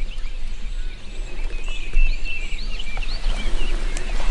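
Songbirds chirping and calling, many short repeated chirps, over a steady low rumble.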